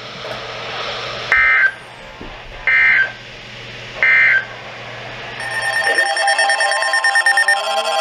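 Three short bursts of Emergency Alert System digital data tones, the end-of-message signal sent after a warning, each about a third of a second long and spaced about a second and a half apart. About five and a half seconds in, a layered set of steady electronic tones with a few rising glides begins.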